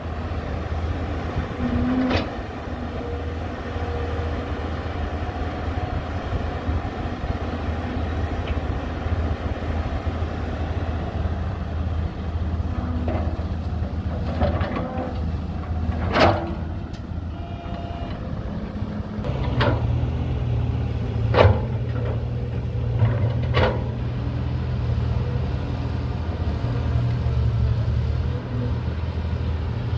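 Heavy diesel engine of a Caterpillar 320GC hydraulic excavator running steadily at work, its drone growing louder about two-thirds of the way through. Several sharp knocks are scattered through it.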